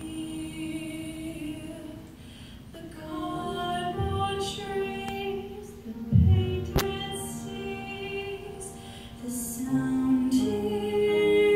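Solo female voice singing in classical recital style, holding long notes, with grand piano accompaniment. A single sharp click sounds about two-thirds of the way through.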